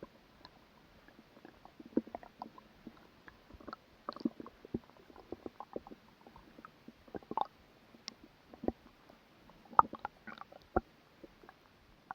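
Human stomach gurgling and rumbling after a meal as food is digested: many short, irregular gurgles and pops with quiet gaps between them, the loudest a little before the end.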